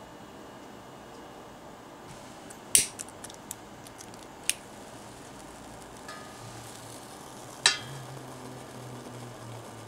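Small metal clicks and clacks as a foil-wrapped solid-fuel cake is set into a miniature metal tabletop stove and lit. A few sharp clacks stand out, the loudest about three seconds in and again near eight seconds, the last with a brief metallic ring.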